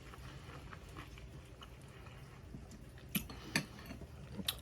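Quiet chewing and mouth sounds of someone eating chicken bites, with a few short sharp clicks in the second half.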